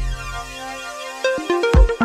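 Electronic background music: a quieter stretch of held synth notes, then a beat with a kick drum comes in near the end, about two beats a second.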